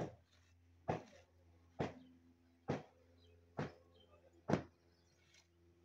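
Sharp knocks repeating evenly a little faster than once a second, six in all, over a faint steady low hum.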